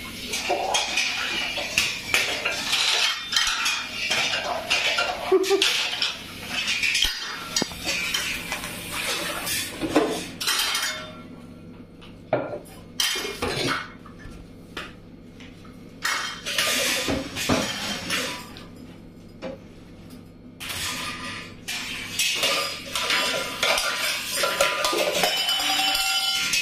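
Steel pots, pans and a wire basket being handled and knocked about by a small child on a tile floor: repeated clanks, clinks and clatter. The clatter thins out to a few knocks for a stretch in the middle, then picks up again.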